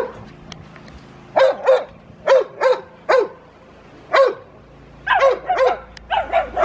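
Dogs barking in short bursts of one to three barks, about a dozen in all with short pauses between. A chocolate Labrador is barking at a rock, and a smaller dog barks back at it.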